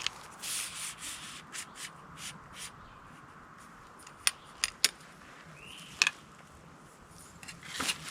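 Trekking pole being extended: its metal sections slide out with short scraping rubs, followed a few seconds in by several sharp clicks.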